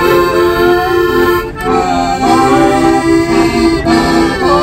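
Piano accordion playing a tune, a melody over short repeated chords.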